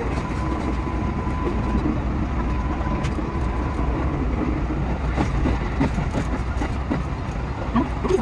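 221 series electric train running, heard from the driver's cab: a steady rumble with scattered wheel clicks over the rails. A steady high tone sounds over it for the first three seconds or so, then fades.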